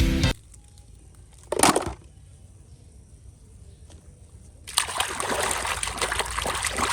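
Water splashing onto a toy being washed: one brief splash about a second and a half in, then water running and splashing steadily from about five seconds in.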